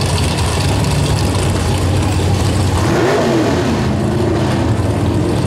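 Drag racing cars' engines idling loudly with a steady, heavy rumble at the start line, with a brief rise and fall in pitch about three seconds in.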